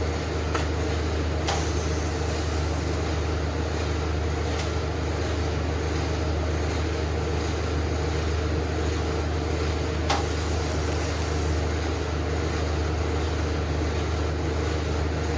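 Steady low mechanical hum, with a few faint clicks and two brief high-pitched hisses.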